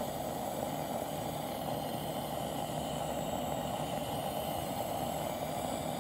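Coleman Northstar gas lantern burning, its gas burner giving a steady, even hiss.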